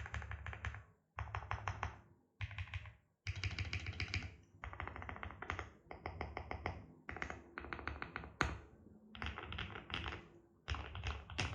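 Typing on a QK65 aluminium keyboard with lubed Gateron Blue Bubblegum linear switches on a POM plate and Cherry-profile keycaps: rapid runs of keystrokes in bursts of about a second, with brief pauses between them.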